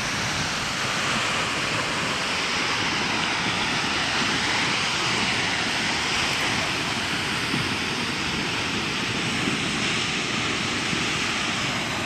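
Steady rushing of nearby falling water, an even unbroken roar.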